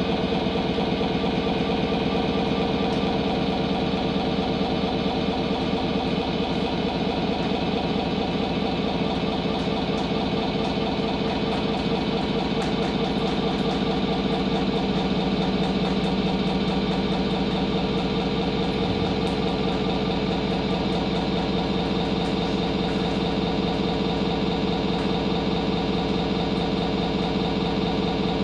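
Chainsaw engine idling steadily, a continuous even putter that neither revs nor changes.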